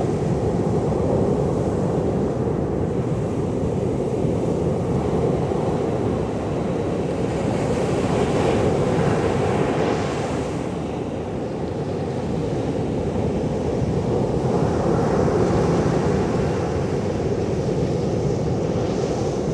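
Sea surf washing continuously, with waves swelling up twice, about midway and again later on.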